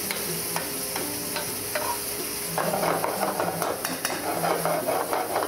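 Chopped onion, garlic, red bell pepper and tomato sizzling in hot olive oil in a pan, with a utensil clicking and scraping against the pan as the vegetables are stirred. The stirring gets busier about two and a half seconds in.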